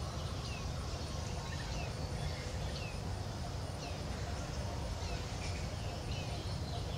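Short, high chirps that fall in pitch, repeating about once or twice a second, over a steady low outdoor rumble.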